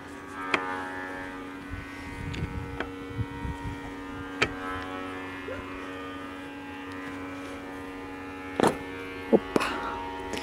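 Steady hum under a few sharp metal clicks and knocks as a VW Golf rear brake caliper piston is worked by hand out of the caliper body.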